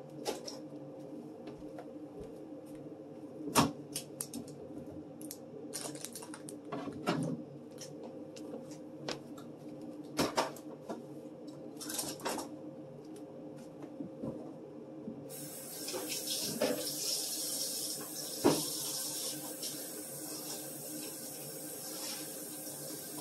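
Plastic cutting boards knocking and clattering as they are handled and wiped at a kitchen sink, with a steady hum underneath; about two-thirds of the way through, the kitchen tap turns on and runs steadily.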